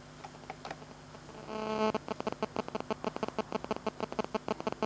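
Telephone ringing with a rapid electronic trill, about seven pulses a second, starting about one and a half seconds in after a few faint clicks.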